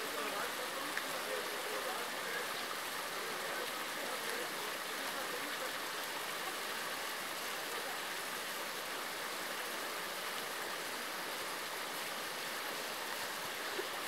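Shallow stony creek flowing, a steady running-water sound.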